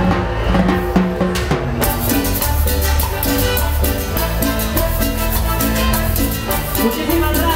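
Live cumbia band playing an instrumental passage: electric bass line under timbales and congas, with a metal güira scraped in rhythm. About two seconds in, bright high percussion strokes come in and keep an even beat.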